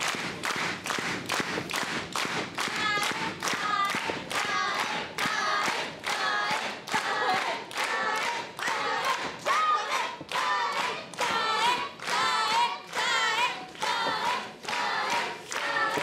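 Wrestling crowd clapping in a steady rhythm, about two claps a second, with high-pitched voices shouting or chanting over the clapping.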